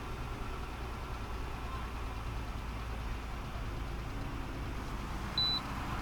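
1998 Ford Taurus V6 engine idling steadily while it has a cylinder 1 misfire. A short high beep sounds once near the end.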